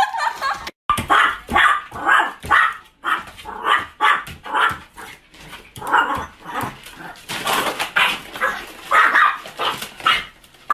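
Small dog barking rapidly and repeatedly, about two sharp barks a second, at post being pushed through the door's letter slot.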